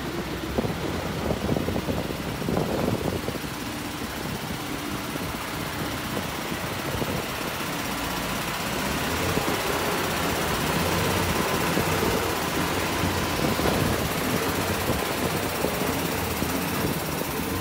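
Isuzu FTR truck's diesel engine idling steadily.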